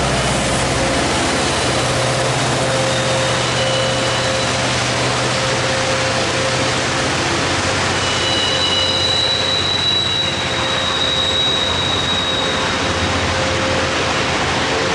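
Union Pacific 4014 Big Boy steam excursion train rolling past: a steady, loud noise of wheels on rail. High wheel squeal comes in over it about eight seconds in and fades a few seconds later.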